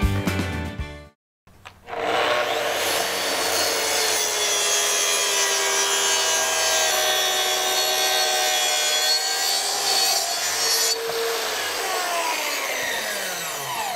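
Makita plunge-cut track saw running along its guide rail through a plywood sheet, a steady motor whine with the hiss of the blade in the wood. Near the end the cut finishes and the blade winds down, its pitch falling. Before the saw starts, the last second of music is heard, then a short gap.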